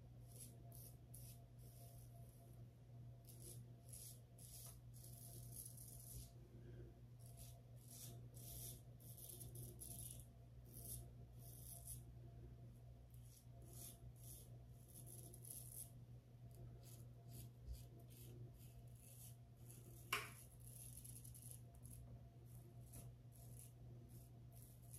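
Faint, short scraping strokes of a Blackland Blackbird stainless steel open-comb safety razor cutting stubble against the grain on a lathered head, coming in quick runs, over a steady low hum. A single sharp click comes about twenty seconds in.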